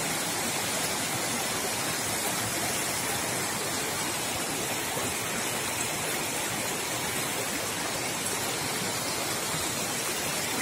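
Shallow stream water rushing steadily over rocks and rubble across a road.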